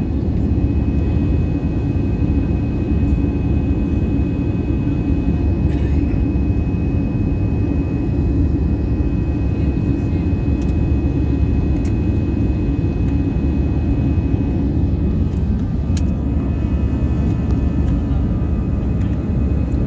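Airbus A319 cabin noise after takeoff: the jet engines and airflow make a steady, loud rumble with a thin steady whine above it. A few faint clicks are heard in the cabin.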